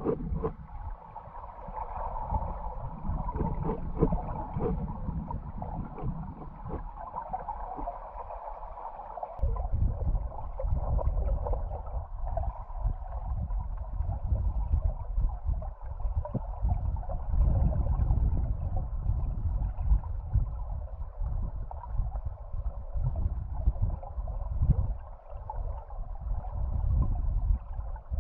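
River current heard underwater through a submerged camera: a steady low rumble and gurgling with scattered small clicks. The rumble grows stronger about a third of the way in.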